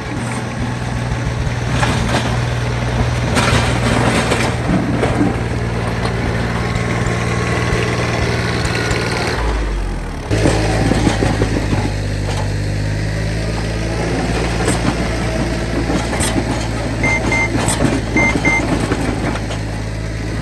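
Branson compact tractor's diesel engine running steadily. The engine note dips and changes about ten seconds in, and a few short double beeps sound near the end.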